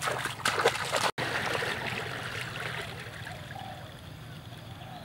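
Two people jumping into a river: loud splashes in the first second, then water sloshing around them as they surface and swim, dying down over the next second or two.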